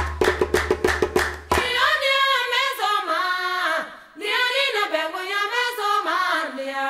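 Fast clicking percussion over a low bass note stops about a second and a half in. Then a woman sings alone, long phrases with sliding pitch and a brief break about four seconds in.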